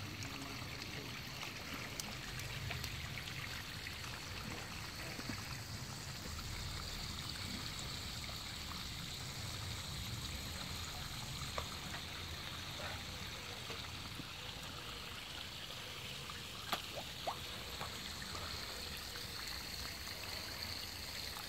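Water trickling steadily into a garden fish pond, with a few brief clicks in the second half.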